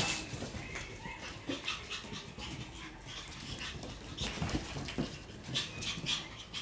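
Shiba Inu puppies playing on a hard floor: scattered clicks and scuffles of paws, with panting and a small whine or two.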